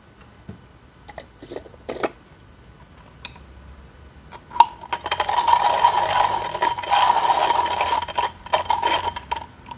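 Comandante C40 hand coffee grinder crunching coffee beans as its crank is turned: a dense, gritty crackle that starts about five seconds in and lasts some four seconds. Before it come a few light clicks and one sharp knock as the grinder is loaded and its lid put on.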